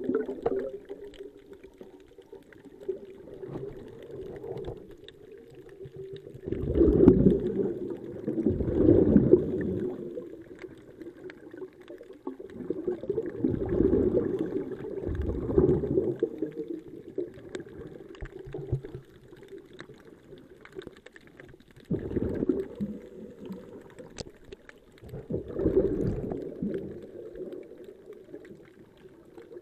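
Scuba regulator exhaust releasing bursts of exhaled bubbles about every few seconds, a loud, muffled bubbling heard underwater.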